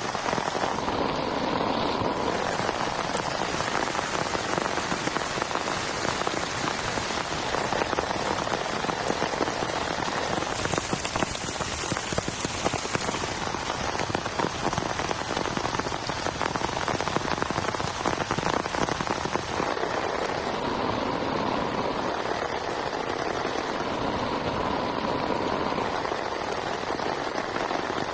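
Heavy rain falling steadily, with a dense spread of individual drops striking close by.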